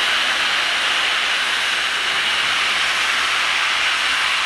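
Steam locomotive standing and blowing off steam: a steady, loud hiss.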